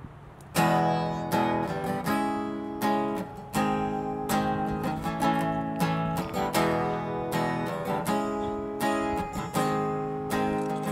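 Acoustic guitar music: strummed chords in a steady rhythm, starting about half a second in.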